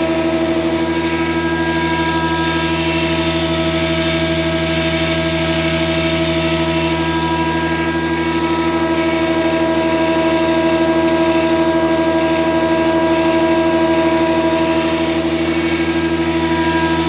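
Holzmann HOB 400 machine running steadily under power, its 400 V motor and gearbox giving a constant hum with a steady whine on top, in a machine shown for a gearbox fault.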